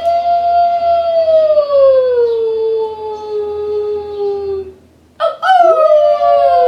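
Wolf howling: one long howl that slides slowly down in pitch, then after a short pause a second howl with another wolf's voice overlapping it.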